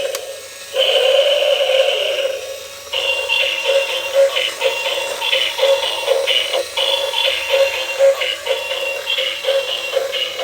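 Tinny electronic tune with no bass from a battery-powered toy robot's small built-in speaker. Two held notes with a short break open it, then a quick run of short, choppy notes follows from about three seconds in.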